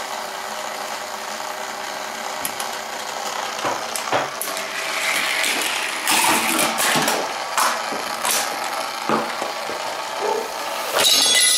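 A small toy motor runs with a steady whir as the K'Nex wheel turns. From about halfway, a series of plastic clicks, clacks and knocks follows as toy cars and parts of the chain reaction set one another off, with a sharp ringing hit near the end.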